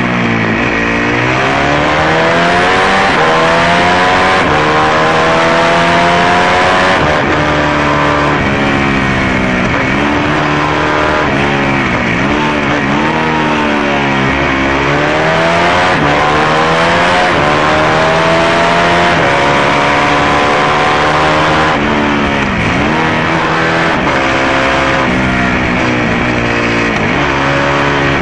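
Racing motorcycle engine at hard throttle, heard close to its exhaust. The pitch climbs as it accelerates and drops sharply several times as the rider brakes and shifts down for corners.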